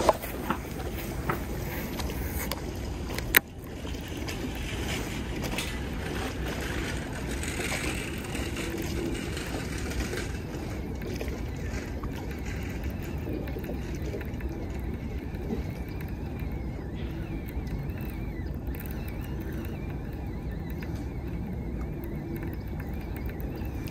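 Steady low, rumbling outdoor noise with a single sharp click about three seconds in.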